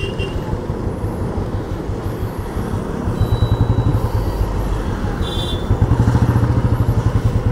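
Motorcycle engine running with a fast, even pulsing beat, growing louder about three seconds in and again near six seconds.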